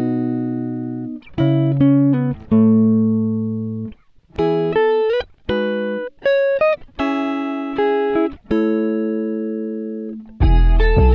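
Background music: plucked guitar chords, each ringing and fading before the next, with a deep bass and fuller backing coming in near the end.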